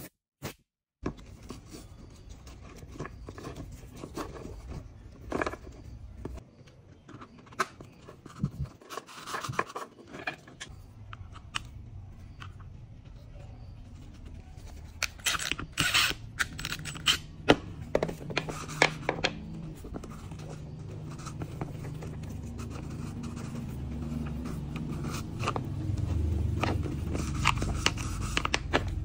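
Hand work on chainsaw parts: scattered clicks, taps and scrapes of tools and parts being handled, over a low hum that comes in about halfway through and grows louder toward the end.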